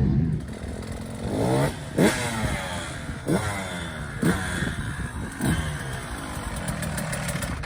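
Motocross bike engine revving hard over and over, its pitch shooting up and falling back about five times as the rider works the throttle and gears.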